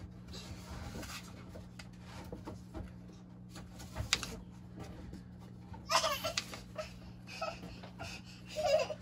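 Faint scraping of a lathe tool being stroked on 3000-grit sandpaper over a glass plate, the fine-grit stage of sharpening, over a steady low hum. A person laughs in the background about six seconds in and again near the end.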